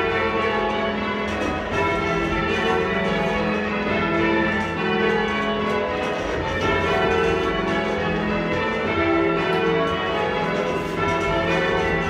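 Church bells being change-rung, heard from outside the tower: bells striking one after another in a steady rhythm, their ringing tones overlapping.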